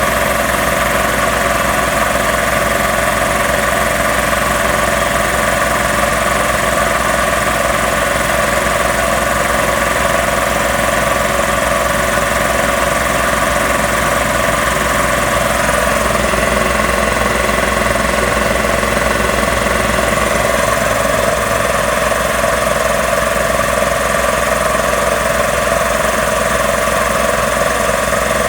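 Two-stage Magna Force air compressor running steadily under load, its pump building tank pressure toward cut-off. Its tone shifts slightly a little past halfway.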